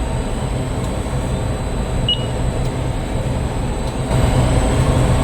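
Fire alarm sounders going off continuously during a sound test from an MX1 fire alarm panel. They come on suddenly and get louder about four seconds in.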